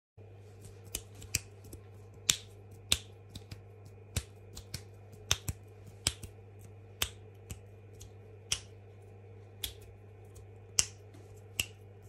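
About twenty sharp, snapping clicks at irregular intervals, some close together in pairs, over a steady faint hum.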